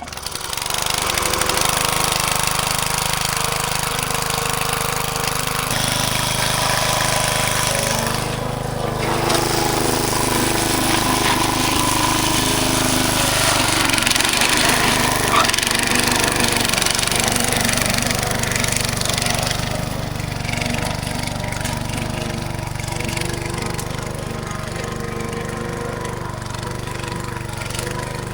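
Small petrol engine of a garden tiller running steadily under load. Its note changes about six seconds in and it eases off a little after about twenty seconds.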